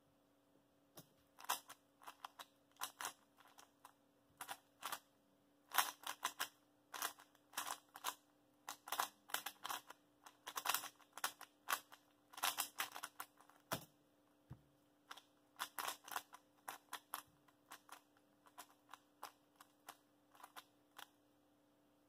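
MF3RS3 M 3x3 speedcube, freshly tensioned and lubed, turned fast through a timed solve: runs of quick plastic clacks from the layers turning, broken by short pauses.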